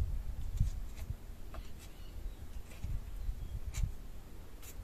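Hoof pick scraping dirt out of a horse's hoof: a few scattered scrapes and sharp clicks over a low rumble.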